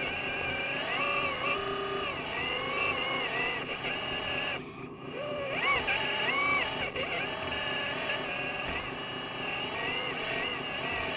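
Whine of radio-controlled construction models' motors working, the pitch rising and falling repeatedly as they speed up and slow down, over a steady low hum.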